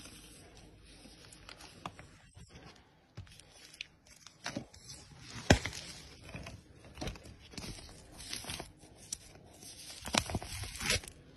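Hands handling an album's printed sleeve and plastic wrapping: irregular rustling, crinkling and scraping, with a sharp knock about five and a half seconds in.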